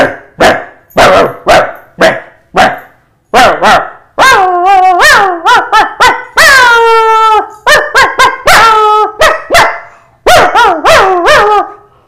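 A man imitating an ordinary dog barking with his voice: six short barks about two a second, then a run of longer, pitched barks with one long cry falling in pitch in the middle, and more barks after it.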